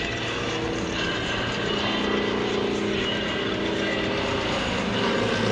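Two Yakovlev Yak-55 aerobatic planes' radial engines and propellers droning steadily as they fly past in close formation, growing a little louder near the end.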